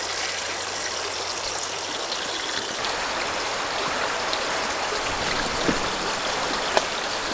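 Trout fillet frying in canola oil in a pan: a steady sizzle, with a couple of faint pops near the end.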